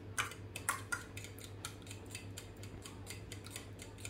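Fork beating eggs in a bowl, its tines clicking against the bowl's side in a quick, fairly regular rhythm of about four strokes a second.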